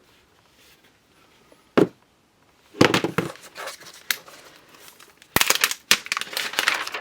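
Packaging of an Apple Magic Keyboard box being opened by hand: a sharp knock about two seconds in, then crinkling and tearing of the paper pull tabs and wrapping.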